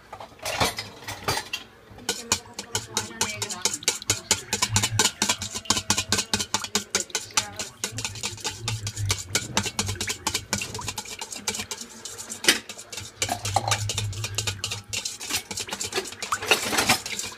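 Spoon stirring a thin liquid mixture in a stainless steel mixing bowl, clinking and scraping against the metal several times a second. It starts with a few strokes, then settles into steady fast stirring from about two seconds in.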